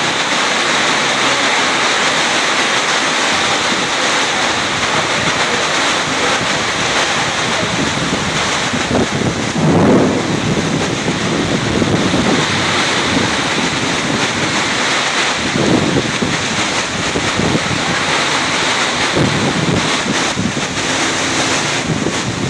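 Heavy rain pouring down in strong wind, a loud, steady hiss, with gusts rumbling on the microphone a few times, the strongest about ten seconds in.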